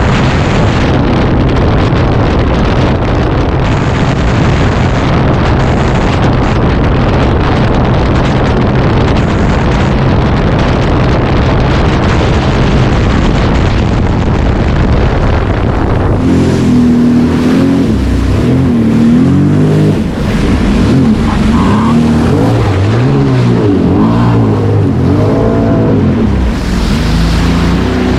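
Sea-Doo personal watercraft engine running hard under a rush of wind and water noise. From about halfway through, the engine pitch rises and falls again and again as the throttle is worked.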